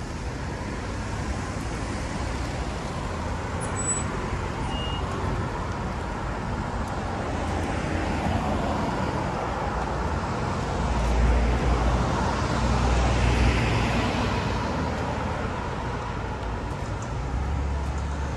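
Road traffic: cars driving past one after another on a street, a steady noise of engines and tyres that swells as vehicles go by. The loudest pass comes about eleven to fourteen seconds in.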